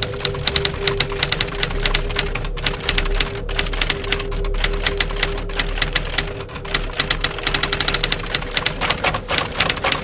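Typewriter keys struck in fast, continuous typing, with a few brief pauses.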